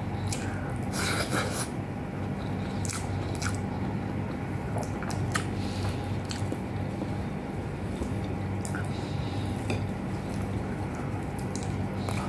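Close-up chewing and mouth sounds of a person eating beef and eggplant with rice, with scattered short smacks and clicks. A steady low hum runs underneath.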